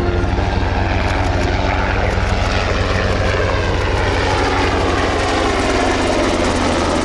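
Sikorsky S-70C twin-turboshaft helicopter running: a steady low drone with rapid regular pulsing and a whine that slides in pitch, the low tone shifting near the end.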